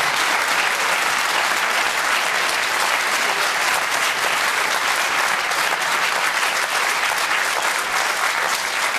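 A large studio audience applauding: dense, steady clapping that eases slightly near the end.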